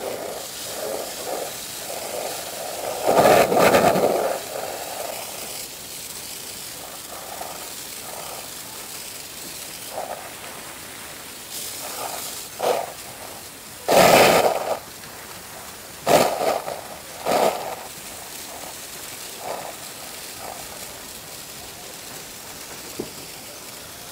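Water jet from a hose nozzle spraying hard across a dock deck, a steady hiss, with louder rushes about three seconds in and again around fourteen seconds.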